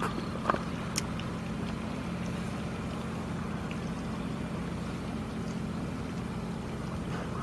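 A boat engine running steadily with a low, even hum. Two short sharp clicks come in the first second.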